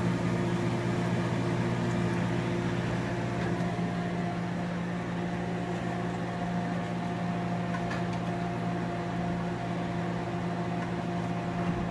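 Steady electric fan-motor hum with an even hiss, unchanging throughout; a faint higher tone joins about three seconds in.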